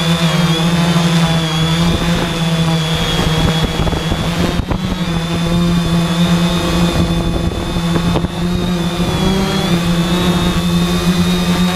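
3DR IRIS quadcopter's electric motors and propellers running in flight: a steady buzzing hum with a high whine above it, its pitch wavering slightly as the motors adjust. Underneath is an uneven rumble of gusty wind.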